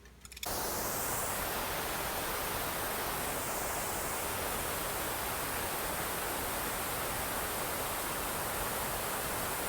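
A steady, even hiss of noise spread across all pitches, with no tone or rhythm in it, cutting in abruptly about half a second in.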